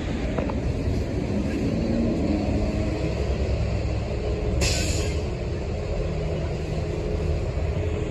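City street traffic: a steady low rumble of engines and tyres at an intersection. About halfway through comes a short, sharp hiss of air, such as a city bus's air brakes releasing.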